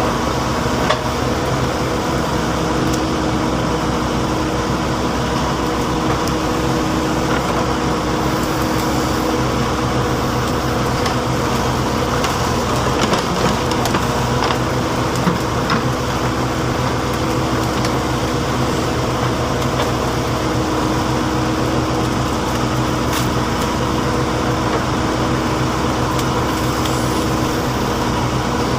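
Backhoe loader's diesel engine running steadily at a constant speed, with a few faint knocks now and then.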